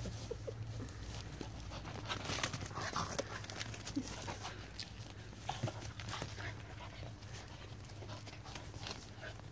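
Dogs playing and chasing each other on grass: scuffling, paw thuds and panting, with a couple of brief vocal sounds, over a low steady hum.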